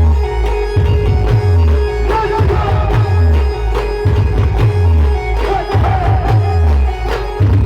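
Band music: deep bass drum hits sliding down in pitch, about one and a half a second, under a steady held tone and a wavering melody.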